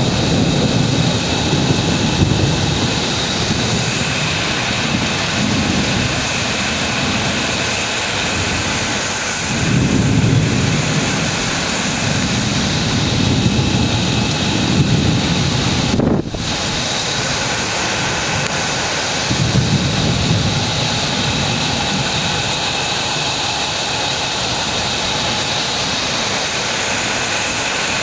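Steady heavy rain hissing, with several low rolls of thunder swelling and fading.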